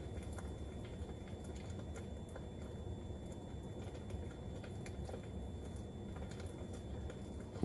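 Crackling campfire sound effect from a Tesla's Campfire Mode: a steady low rumble with irregular sharp pops and snaps.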